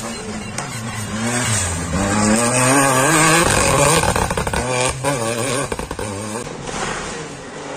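Rally car engines revving hard on a dirt stage. The first car's engine pitch climbs as it gets louder, loudest about halfway through. After that a second car's engine revs up and down through gear changes.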